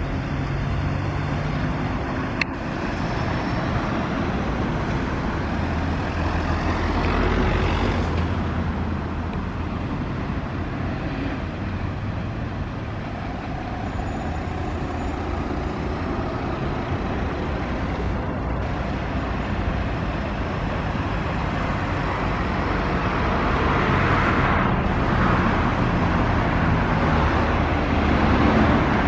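Steady road traffic passing, with diesel engine hum; a Scania P280 fire engine's diesel engine grows louder as it approaches over the last few seconds. A single sharp click sounds about two seconds in.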